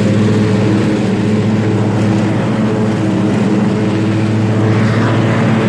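Lawn mower engine running steadily at a constant speed, heard close up.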